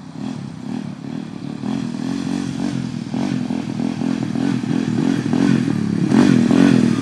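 Small ATV engine running with the throttle worked unevenly, its pitch rising and falling, getting louder as the quad comes closer.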